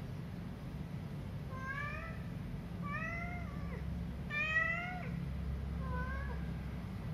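Feral cat meowing four times, each call rising and then falling in pitch, the third the loudest. A steady low hum runs underneath.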